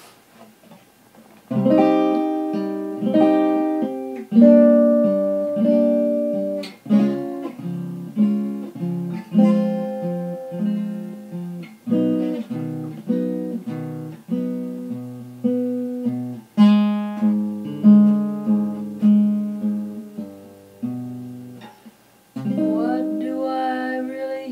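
Instrumental guitar intro to a song: a slow series of plucked chords, each struck and left to ring and fade before the next. There is a brief pause near the end before the guitar comes back in.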